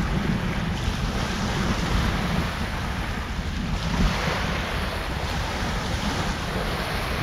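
Strong thunderstorm wind gusting and buffeting the microphone, over a steady rushing noise that swells and eases every couple of seconds.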